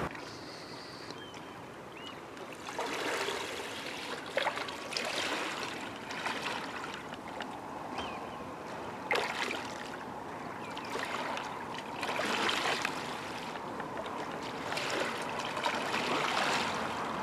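Harbour water lapping and sloshing in small, irregular splashes.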